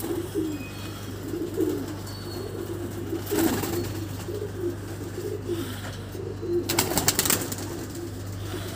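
Domestic pigeons cooing over and over in a loft. A few brief noises cut across it, one cluster a little past three seconds and another, the loudest, about seven seconds in.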